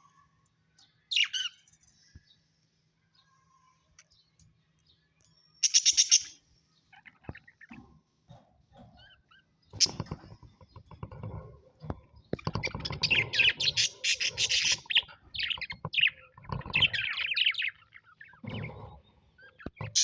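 Pet parrot calling: a short call about a second in, a loud harsh call around six seconds in, then a long stretch of busy chattering calls in the second half.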